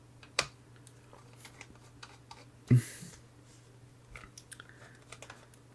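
Faint clicks and ticks of a small screwdriver and a tiny screw being worked into a laptop's SSD mount, the screw hard to seat because the holes don't align. There is a sharper knock almost three seconds in and a run of quick little ticks near the end.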